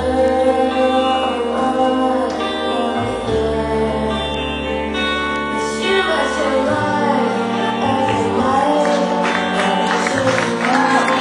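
A song with sung vocals over long held bass notes, the dance music for the routine.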